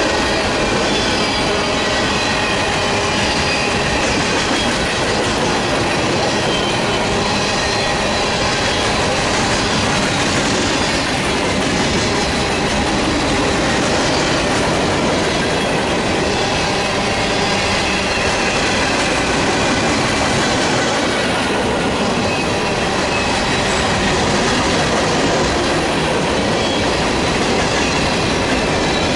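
Grain train's covered hopper cars rolling past, a steady rumble of steel wheels on rail with thin high squeals from the wheels.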